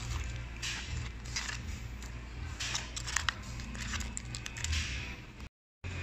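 Foil cat food pouches crinkling and rustling as they are handled, in short crackly bursts with a few sharp clicks, over a low steady hum. The sound drops out completely for a moment near the end.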